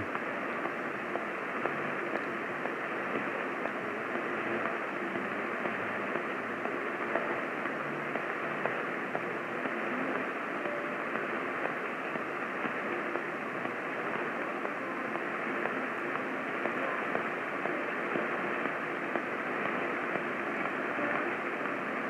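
Steady hiss of AM radio static from a weather-alert radio tuned to 640 AM, with no voice or tones on it: dead air where the relayed test message should be, since the station failed to air the message.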